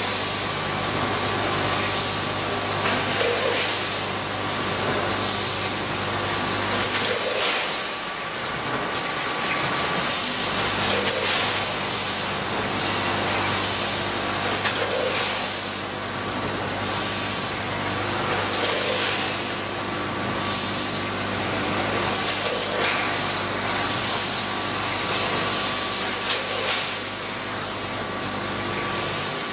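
Ohlson vertical form-fill-seal bagger with a multi-head weigher running, bagging rice: a steady machine hum with short hissing bursts about once a second and a softer regular beat about every two seconds as it cycles.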